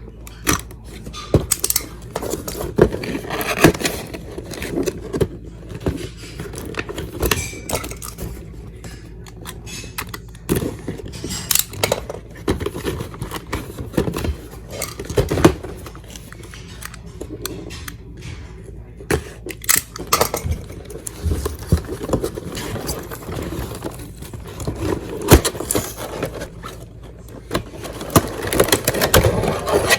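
Action figure packaging being opened by hand: irregular scrapes, crackles and sharp clicks of cardboard and plastic being handled and pulled apart.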